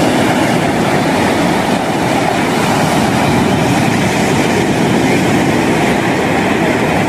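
Sea surf breaking and washing in over shoreline rocks: a loud, steady rush of waves.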